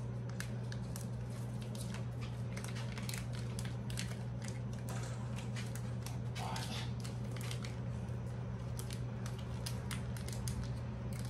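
Kitchen counter work by hand: scattered light clicks and taps of utensils and food handling, with a brief louder squishy scrape about five seconds in, over a steady low hum.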